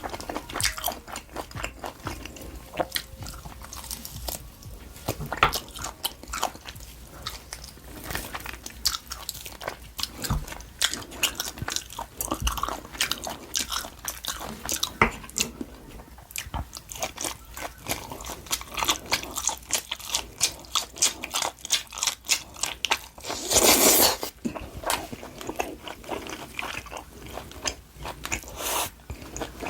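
Close-miked biting and chewing of LA galbi, grilled marinated beef short ribs: a steady run of sharp, wet, crunchy mouth clicks. About three-quarters of the way through there is one louder rushing burst, under a second long.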